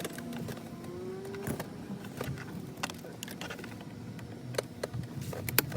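Scattered clicks and light metallic knocks of hand tools working at the steering wheel's airbag bolts, with a quick cluster of sharper clicks near the end.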